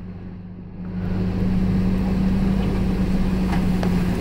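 Truck engine running steadily while driving through floodwater, with water washing around the vehicle; the sound gets louder about a second in.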